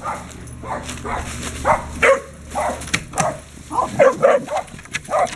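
A puppy barking repeatedly at other dogs, about a dozen short barks in quick succession.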